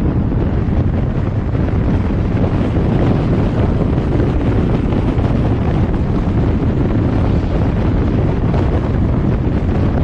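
Steady wind rush on the microphone over the low, even road and engine noise of a vehicle driving along.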